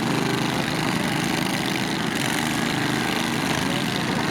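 Several riding lawn mower engines running together at a steady pace, their overlapping hum over a noisy background.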